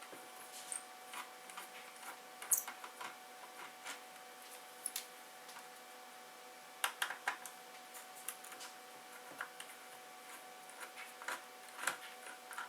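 Scattered light clicks and taps of small plastic instrument-cluster parts and tools being handled while fitting a glow gauge overlay, over a faint steady hum.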